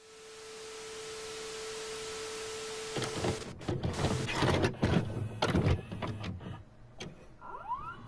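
Old TV and VHS playback sound effect: a steady hiss of static with a held tone, then about three seconds in, harsh crackling and clicking glitch noise. Near the end comes a rising whine as the tape starts to play.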